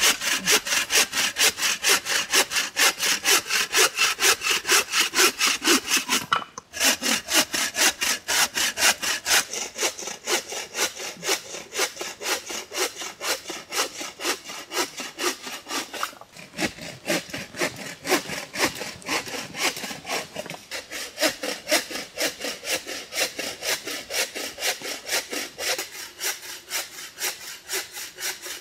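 Bow saw cutting through a thin branch in quick, steady back-and-forth strokes, with two brief breaks about six and sixteen seconds in.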